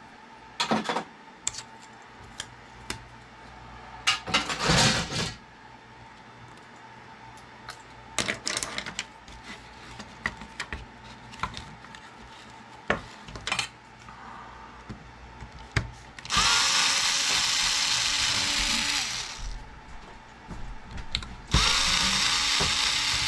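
Cordless drill/driver backing screws out of a plastic alarm clock case in two runs, about three seconds and then about two seconds, each starting with a quick spin-up. Before that, scattered clicks and knocks of plastic clock parts being handled.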